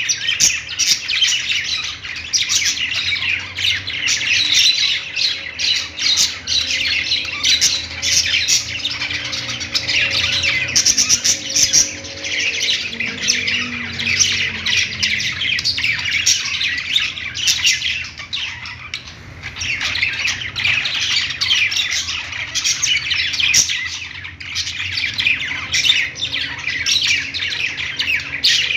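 A group of budgerigars chirping, chattering and squawking continuously, many short overlapping calls.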